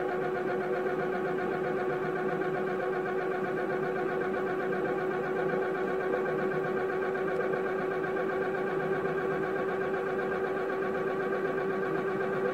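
Small electric motor driving a heavy flanged steel flywheel wheel, running at a steady speed: an even whirring hum with one strong steady tone and several higher overtones.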